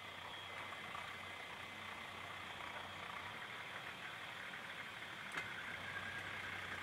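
Distant Toyota Land Cruiser HJ75 six-cylinder diesel engine running faintly and steadily as the ute drives slowly across open ground, under a steady hiss.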